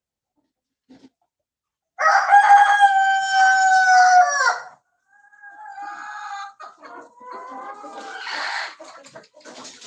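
Kadaknath rooster crowing once about two seconds in, a long held call that drops at the end, followed by quieter clucking and calls from the flock.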